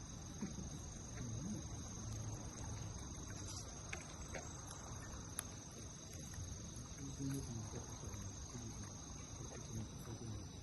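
Insects trilling steadily in a high, even tone, with a few faint clicks.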